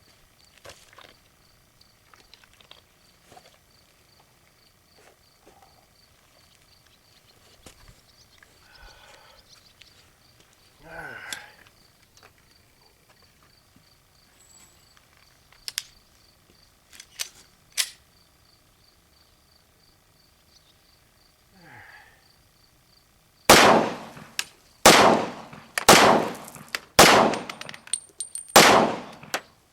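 Smith & Wesson M&P pistol in .357 SIG firing five shots roughly a second apart, sharp and loud with a short echoing tail, after a long stretch of faint handling clicks and rustles under a faint steady high tone.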